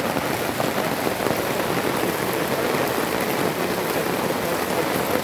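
Heavy rain falling steadily: an even, unbroken hiss of drops.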